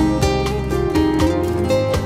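Ambient background music: plucked, guitar-like notes picked one after another over a held low bass.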